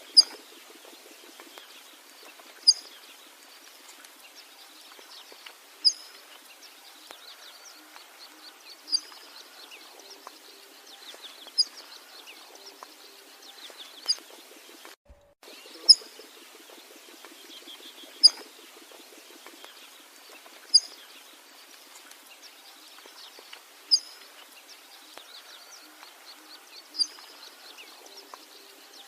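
Birds calling outdoors: a loud, short, high-pitched call repeats about every three seconds over a faint, continuous chorus of smaller chirps. The sound cuts out briefly about halfway through.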